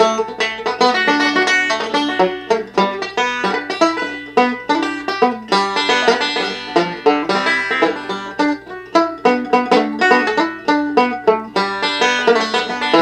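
Solo banjo picked in a quick, steady run of bright plucked notes, playing a country/bluegrass-style tune.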